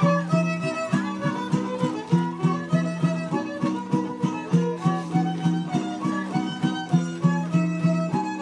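Traditional Huastecan dance music: a violin melody over a steady strummed string accompaniment, with an even beat of about three pulses a second.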